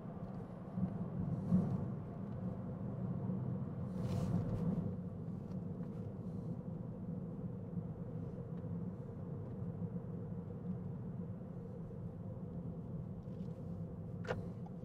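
Steady road and tyre noise inside a 2019 Toyota Corolla hatchback's cabin as it coasts with the foot off the accelerator, with a brief louder rush about four seconds in and a short click near the end.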